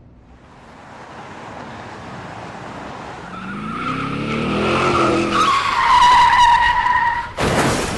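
Car engine revving up while tyres screech, growing steadily louder, then a sudden crash impact about seven and a half seconds in.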